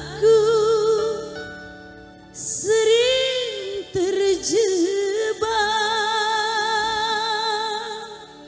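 Live dangdut band playing an instrumental intermezzo: a lead melody that slides into its notes and holds them with heavy vibrato over sustained keyboard chords, ending on one long wavering note that fades near the end.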